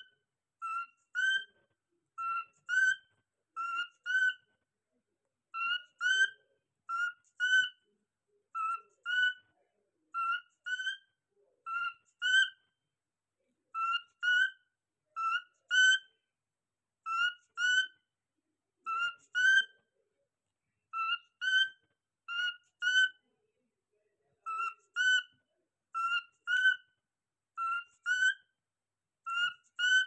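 Cockatiel calling: short, slightly rising whistled calls in quick pairs and threes, repeated over and over with brief silences between.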